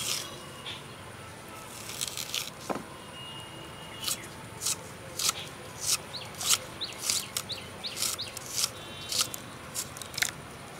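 Peeled raw banana being cut into small pieces with a hand-held curved iron blade: a series of short, crisp cuts, about two a second.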